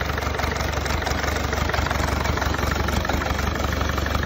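Land Rover 300Tdi 2.5-litre four-cylinder turbodiesel idling steadily on an engine stand, with an even, rapid diesel clatter over a low hum. It is being run out of the vehicle to watch for a leaking rear main oil seal.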